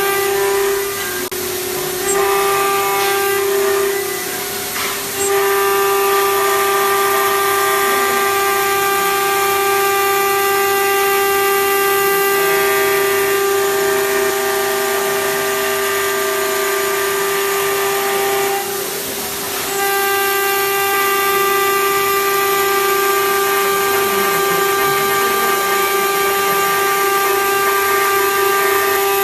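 Digital flatbed CNC cutting machine's cutting head running with a steady high whine over a hiss, dropping off briefly three times as it pauses between cuts.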